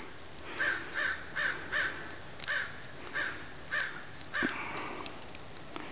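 A bird calling: a run of about eight short calls, roughly two or three a second, that stops a little past four seconds in.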